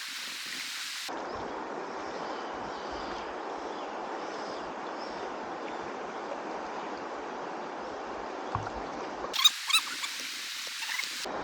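Steady rushing of a rainforest river's current, with a few short high chirps near the end.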